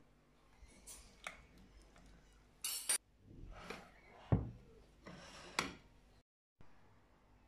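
Metal knife and cake server scraping and clinking against ceramic plates as a set fruit-jelly dessert is cut and a portion served. A few short scrapes and taps, the loudest a knock about four seconds in.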